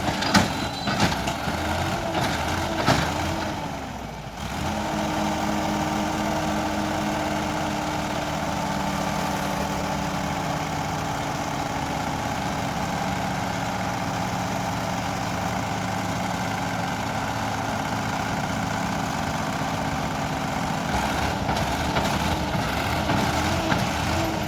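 Heavy diesel engine of the earth-moving machinery. For the first few seconds it revs up and down with a few knocks. It then settles into a steady idle, and the revs change again near the end.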